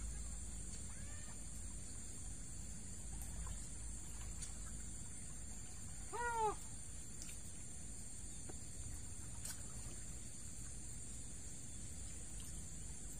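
Steady low rush of a swollen river. About six seconds in comes one short call that rises and falls in pitch, with a few faint clicks scattered through.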